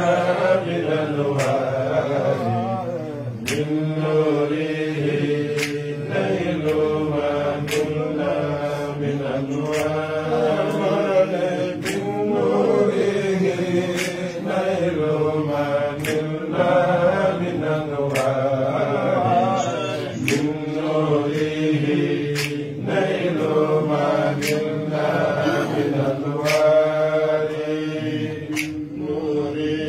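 Voices chanting in long, drawn-out melodic phrases that pause and start again every few seconds, with sharp clicks at irregular intervals over them.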